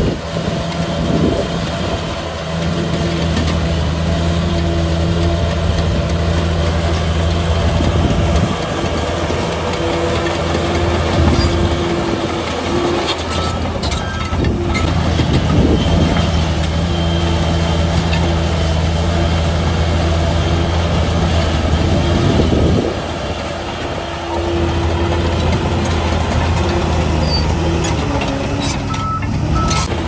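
Heavy diesel engine of an earthmoving machine running steadily, its revs dropping and picking up again several times.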